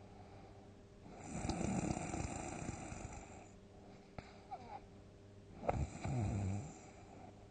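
A person snoring loudly: one long, rough snore about a second in that lasts about two seconds, a few faint clicks, then a shorter snore near the end that starts with a sharp catch.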